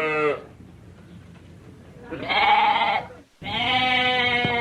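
Sheep bleating: the end of one bleat, then two more, about two seconds and three and a half seconds in, each a wavering, quavering call.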